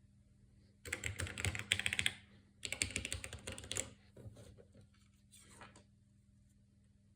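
Keys of a mechanical Amiga keyboard with custom linear switches clattering in two dense bursts of rapid clicks, each over a second long, followed by a few fainter scattered clicks.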